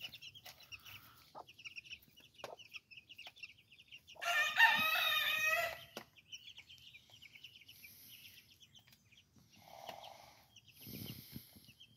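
Asil chicks peeping rapidly and steadily. About four seconds in, an adult chicken gives one loud, drawn-out call of about a second and a half with a wavering pitch.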